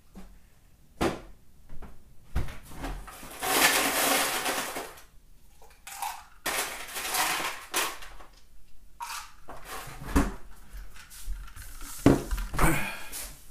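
Household clatter of dishes and utensils: scattered knocks and clinks and two spells of hissing noise, then a sharp knock near the end as a plastic cup of iced drink is set down on a wooden table.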